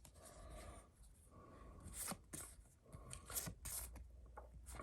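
Pokémon trading cards being handled and sorted: faint, short rustles and clicks of cards sliding against each other, several times.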